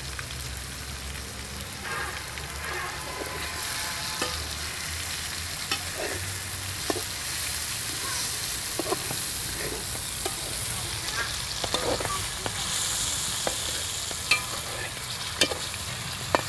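Meat and browned onions sizzling in oil in a metal karahi while a perforated metal skimmer stirs them, clinking and scraping against the pan every second or two. This is the meat browning just after salt and turmeric have gone in.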